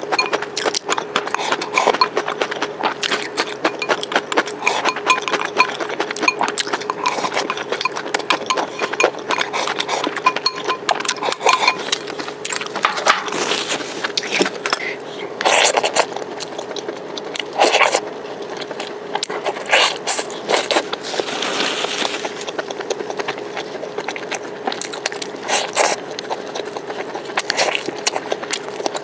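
Close-miked eating of spicy duck neck and hot-pot food: dense chewing, crunching and small wet clicks, with a few louder noisy bursts around the middle. A faint steady hum runs underneath.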